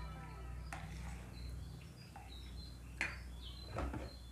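Small birds chirping in the background, short high chirps repeating. Several light clicks and knocks of a spoon and plastic tableware, the loudest about three seconds in and again near the end as a plastic container is picked up.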